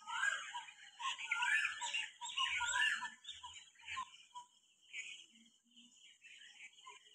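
Birds chirping and calling, with many quick rising and falling calls in the first three seconds and fewer after, over a steady high hiss.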